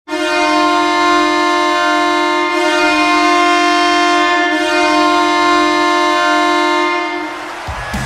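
Belleville Senators hockey goal horn sounding one long, steady blast for about seven seconds, then fading as goal music with a beat starts near the end.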